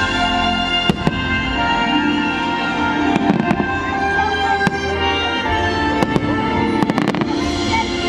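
Aerial firework shells bursting in a string of sharp bangs, with a quick cluster of bangs about seven seconds in, over the fireworks show's music playing loudly.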